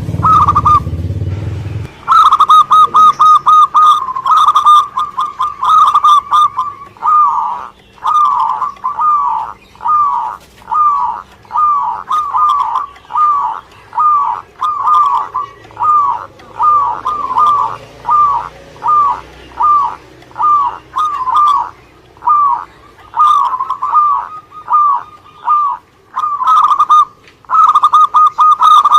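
Zebra dove (perkutut) singing: a long series of short, rapid cooing notes, grouped into quick runs and single notes. A low rumble is heard in the first two seconds, before the song begins.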